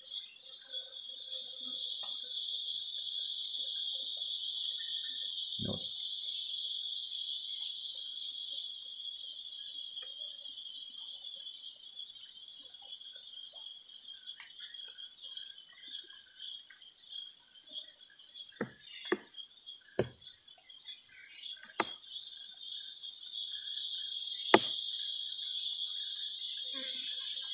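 Steady shrill chorus of rainforest insects, with one high band over a lower buzzing band. A few sharp clicks cut through it, once about six seconds in and several more near the end.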